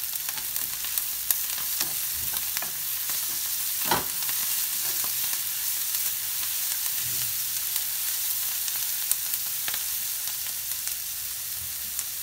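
Shredded cabbage, capsicum and onion sizzling in oil in a ceramic-coated kadhai while a wooden spatula stirs them, with scattered scrapes and taps of the spatula against the pan. One louder knock comes about four seconds in.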